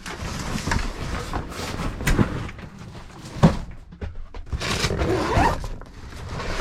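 Packages and a plastic delivery tote being handled and shifted: irregular rustling and scraping, with a sharp knock about three and a half seconds in.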